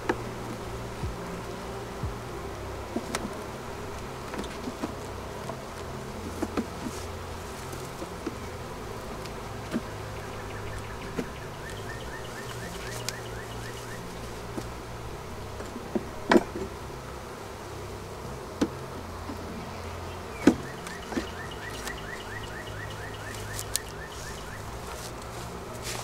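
Honeybees buzzing steadily around an opened hive with its frames exposed. A few sharp knocks punctuate it, two of them louder past the middle.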